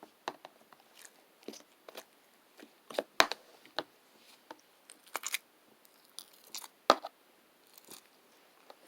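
Irregular crisp crunches and clicks close to the microphone in a quiet small room, the loudest about three seconds in and again about seven seconds in.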